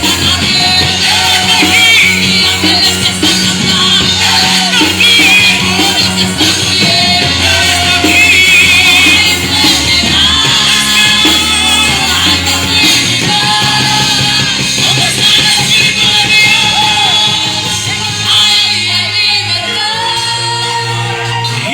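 Live church worship band playing: a drum kit keeps a driving beat under long held bass notes, with voices singing over it.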